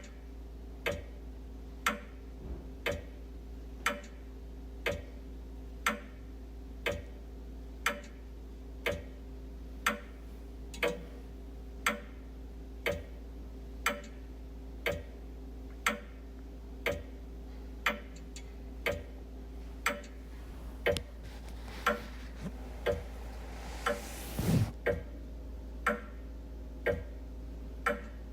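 Wall clock ticking steadily, about one tick a second. Near the end a rustling noise swells and ends in a brief, louder crunch, the loudest sound here.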